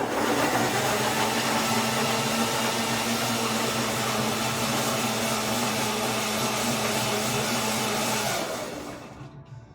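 Electric countertop blender running at a steady speed, puréeing vegetables and herbs into a sauce. It starts abruptly and shuts off about eight seconds in, winding down over a second.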